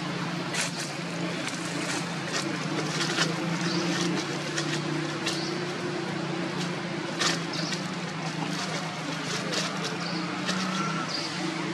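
A small motor running with a steady low drone, with scattered sharp clicks over it.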